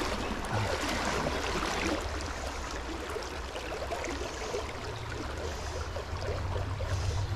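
Shallow river water flowing and trickling steadily over stones, with a low rumble underneath that grows stronger about halfway through.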